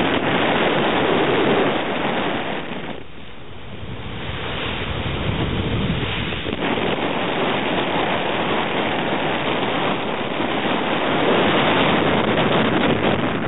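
Wind rumbling on the microphone over the rush of the open sea, easing briefly about three seconds in.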